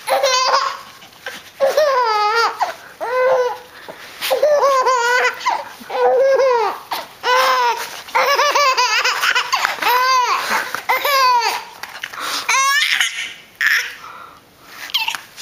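Six-month-old baby laughing in repeated bouts of high-pitched giggles, each a quick string of short pulses with brief pauses between, as a dog nuzzles his face. The laughter dies down near the end.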